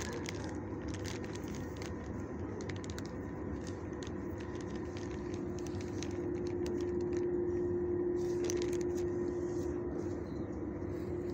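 A steady mechanical hum holding one pitch, with a plastic zip-top bag crinkling now and then as a gloved hand digs dog treats out of it, most in the first few seconds and again about eight seconds in.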